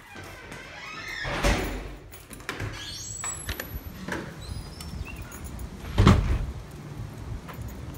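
A door being pushed open and swinging shut, with a short squeak and a loud thud about six seconds in.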